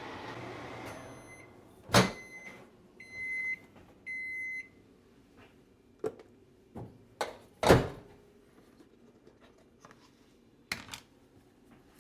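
Microwave oven finishing a one-minute cooking cycle: its running hum stops about a second in, then there is a click and two long beeps marking the end of the cycle. Several clicks and knocks follow, the loudest near the middle, as the door and the covered steamer dish are handled.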